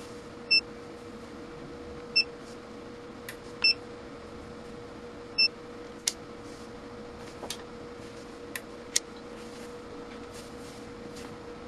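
Four short, loud electronic beeps about a second and a half apart. These are followed by a few sharp clicks as the multimeter's rotary selector dial is turned. A steady faint hum sits underneath throughout.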